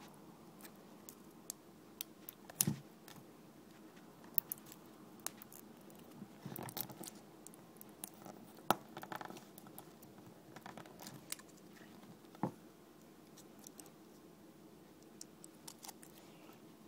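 Small hard parts being handled and worked by hand: scattered clicks and taps with short bouts of scraping, from taking apart an eGo-type e-cigarette battery. The three loudest clicks come about 3, 9 and 12 seconds in.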